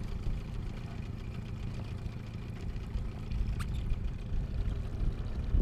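Outboard motor running slowly on an inflatable boat: a steady low rumble.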